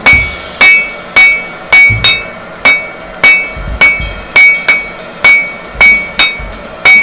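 Blacksmith's hammer striking hot steel on an anvil in a steady rhythm, about two blows a second, each blow leaving the anvil ringing. The steel is rebar being drawn out.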